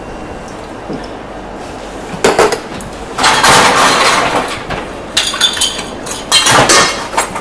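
Metal bar tools and a glass bottle knocking and clinking on a bar counter: a few sharp knocks, a longer clatter about three seconds in, then more clinks near the end.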